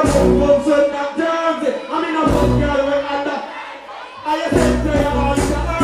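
Live concert music: a singer's voice over a backing track with heavy bass. The bass and beat cut out past the middle, leaving the voice thinner and quieter, then kick back in about four and a half seconds in.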